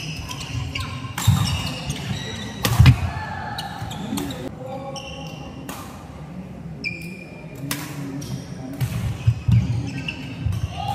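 Badminton rally on a wooden indoor court: sharp racket strikes on the shuttlecock a second or so apart, thudding footsteps and short high shoe squeaks as the players move, with spectators' voices in the background.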